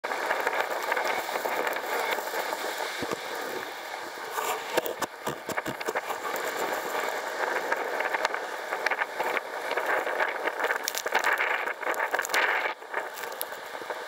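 Blizzard wind rushing and gusting, rising and falling in strength, with scattered crackles and ticks throughout.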